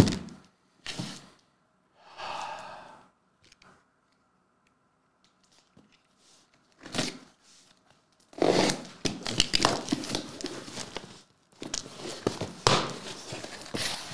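A taped cardboard trading-card box being opened: a few short scrapes and rustles, then from about eight seconds in, long stretches of tape and cardboard tearing and crinkling.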